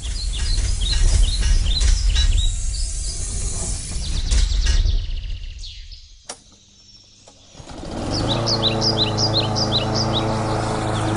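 Small birds chirping over a low rumble of outdoor noise. After a short lull about six seconds in, the chirping picks up again over a steady low hum.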